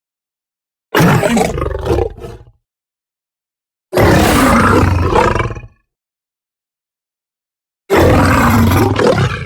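Sabre-toothed cat (Smilodon) creature sound effect: three separate roars, each about two seconds long, with dead silence between them.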